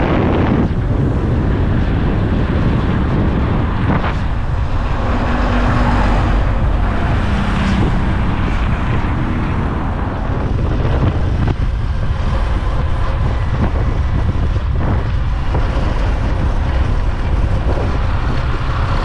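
Motorcycle ride heard from the passenger seat: steady wind noise buffeting the microphone over the running motorcycle engine.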